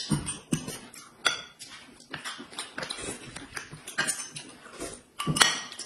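Eating sounds: a man slurping and chewing a mouthful of noodles, with short clicks and clinks of chopsticks against a plate and a spoon in a glass mug.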